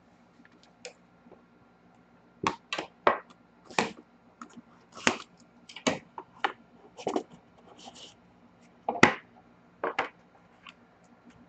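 A cardboard trading-card box being opened and its contents handled: a scattered series of short, sharp taps and knocks with a few brief rustles, starting a couple of seconds in.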